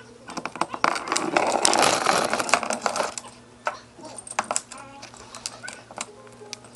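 Glass beer bottle clinking and clattering on a tile floor as a Meyer's parrot shoves it with its beak. There is a dense run of clinks and scraping for the first three seconds, then scattered single knocks.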